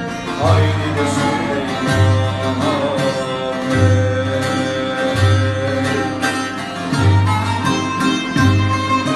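Turkish folk-song (türkü) arrangement led by plucked bağlama over deep bass notes that return about every second and a half, with a long held melody note sliding slightly in the middle.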